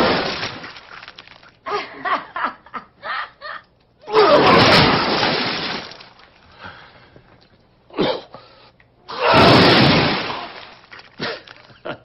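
Projectile vomiting: loud gushing, splattering sprays of liquid in three long bursts, at the start, about four seconds in and about nine seconds in, with short choppy splutters between them.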